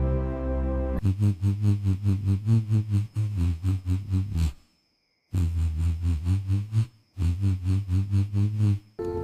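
Background music: a held synth chord gives way about a second in to a pulsing pattern of about four to five beats a second over a low note, which breaks off to silence twice.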